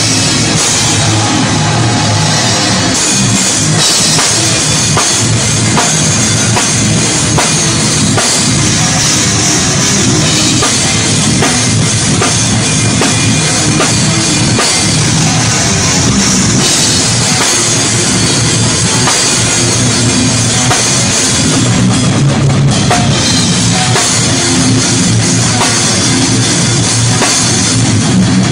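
Deathgrind metal recording: loud distorted guitars and bass over fast, dense drum-kit playing with heavy bass drum, running at a constant level.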